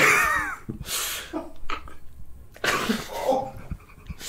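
A person reacting with disgust: a falling groan, then stifled, cough-like bursts of laughter and breath through a hand held over the mouth.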